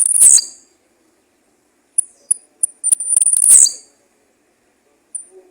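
Blue-black grassquit (tiziu) singing: a few short, very high chips leading into a loud, buzzy high note that drops in pitch at its end. The phrase comes twice, the first ending just after the start and the second about two to four seconds in, with a third beginning near the end.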